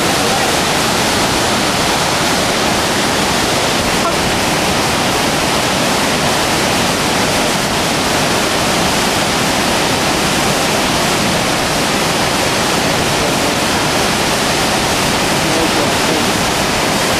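Waterfall whitewater pouring through a narrow rock channel: a loud, steady rush of water that never changes.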